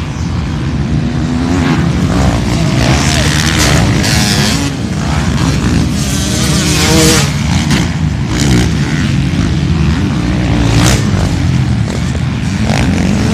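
Off-road motorcycle engines running and revving loudly, rising and falling in pitch.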